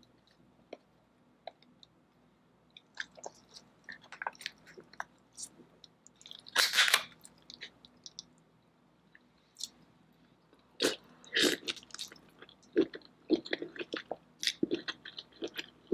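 Close-miked eating sounds: a sauce-covered lobster tail being handled and its shell pulled apart, with one loud crunch about seven seconds in, then biting and wet chewing with rapid clicks from about eleven seconds on.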